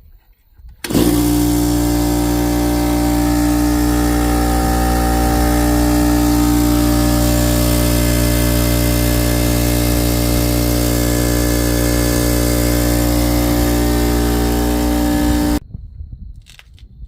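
Coleman Powermate direct-drive air compressor running: the motor and pump start suddenly about a second in, run at a loud, steady hum and cut off abruptly near the end.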